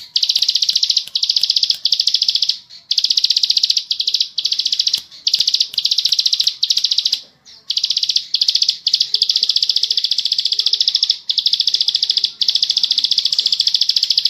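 Ciblek sawah, a small prinia songbird, singing its long, fast rattling trill ('ngebren'). It comes in high bursts of about one to three seconds with short breaks between them, the longest break a little after seven seconds in.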